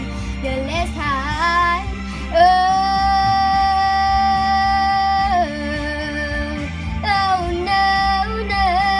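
A girl's solo singing voice over a backing track: quick wordless runs, then a long steady high note held for about three seconds, then more runs near the end.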